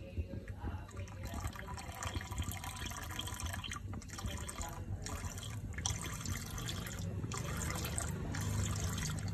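Milk poured from a carton into a pan of boiling tea, splashing and bubbling in the hot liquid, with a few short breaks in the pour.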